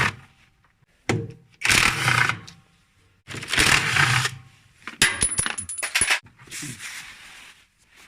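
Electric impact wrench running in several short bursts to take out the bolts of a washing machine drum's counterweight, with sharp metallic clinks and a quick rattle of hits about five seconds in.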